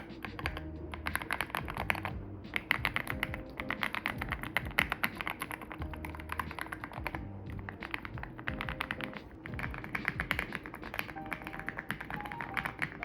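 Fast, continuous typing on a YUNZII C98 mechanical keyboard, the keys clacking many times a second with a couple of brief pauses. Background music plays under it.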